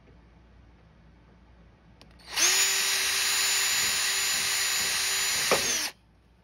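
Small power drill spinning up, running at a steady pitch for about three and a half seconds while drilling out a hawse hole in a plastic model ship hull, then spinning down.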